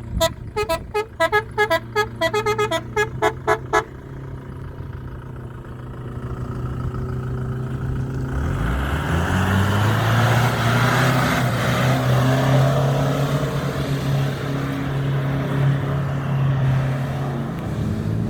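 A quick tune of about twenty short beeping notes over a steady low engine hum, then from about eight seconds in a Willys Jeep CJ's engine revs up and runs hard under load.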